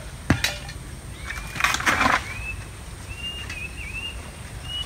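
Coconuts being snapped off a coconut palm with a long pole: a sharp crack, then about a second and a half later a short rustling crash.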